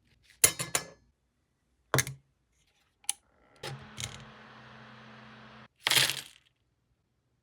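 Sharp clicks and clatters of small hard objects being handled and set down on a work surface. There is a cluster of them at the start, single knocks later, and a louder clatter near the end. In the middle, something with a low steady hum runs for about two seconds.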